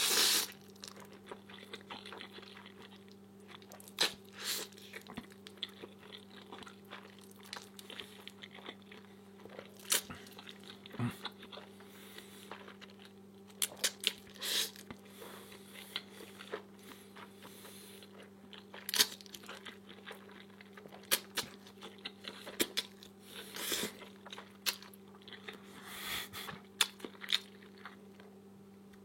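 Close-up eating sounds: a person chewing with scattered short crunches and wet mouth smacks every second or so, over a steady low electrical hum.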